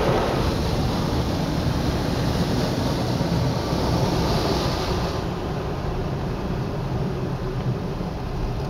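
Automatic car wash running, heard from inside the car's cabin: a steady rumble of the machinery and rotating brushes with water hissing over the car. The higher hiss drops away about five seconds in.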